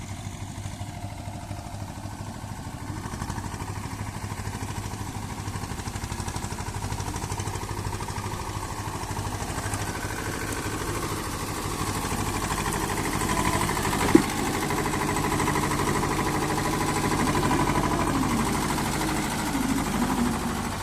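Diesel engine of a heavy farm vehicle running steadily and getting gradually louder, with one sharp click about fourteen seconds in.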